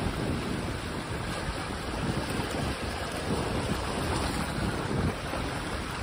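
Small ocean waves washing and splashing against a rock jetty and over shallow water at the shoreline, a steady wash with no single big break. Wind buffets the microphone, adding a low rumble.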